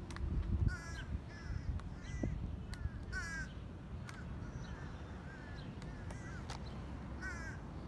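Crows calling: a series of short, hoarse caws, several in quick succession in the first half and another near the end, with scattered sharp taps of a beak pecking at a plastic food container.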